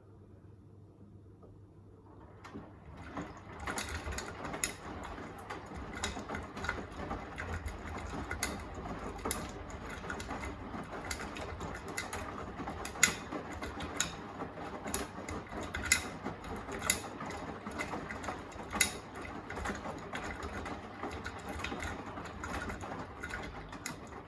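Beko WTK104121A washing machine drum turning during the wash, starting about two and a half seconds in and stopping just before the end. The steady motor and drum noise is broken by sharp, irregular clicks.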